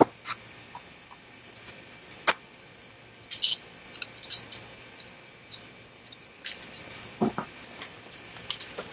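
Scattered small clicks, taps and light clatter of hands handling small 3D-printer parts and tools on a workbench, with a couple of duller knocks about seven seconds in.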